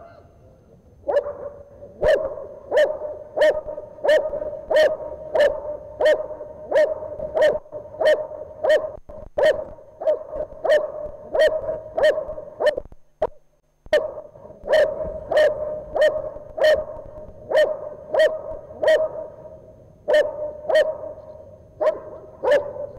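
A dog barking steadily and rhythmically, about one and a half barks a second, with a brief pause about halfway through. It is guarding the helper after releasing the sleeve in the protection phase of an IGP trial.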